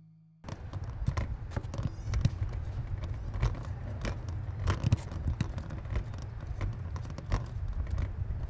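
A wheelchair pushed up a concrete ramp: irregular clicks and rattles over a steady low rumble of street traffic, starting about half a second in.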